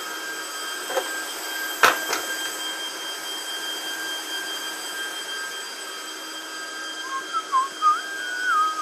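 Cooling fans of an Adtran NetVanta 1238P 48-port PoE network switch running fast: a steady rush of air with several high, steady fan whines. A sharp knock comes just under two seconds in, and a wavering whistle-like tone near the end.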